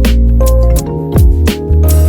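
Background music: an electronic track with a steady beat, kick drum and hi-hats over sustained chords and bass.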